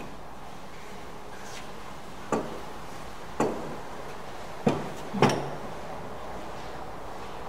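Four short wooden knocks as a pine board and a wooden marking gauge are handled and set together, about a second apart, with the last two close together and the last the loudest.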